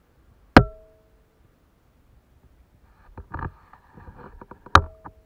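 Two sharp knocks about four seconds apart, each leaving a brief ringing tone, with light rustling and small clicks between them.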